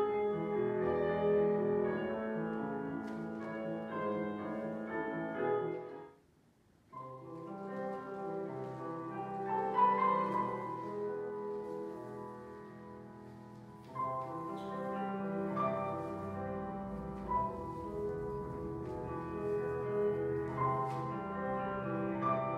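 Classical piano music for ballet barre exercises. One piece ends about six seconds in, and after a pause of under a second another piece begins.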